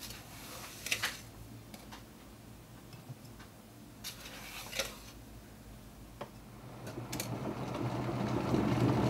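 Light clinks and rattles of ground coffee being tipped from a metal canister into a glass French press, a few short knocks about a second in and again around five seconds in. From about seven seconds an electric kettle's rumble rises steadily as the water nears the boil.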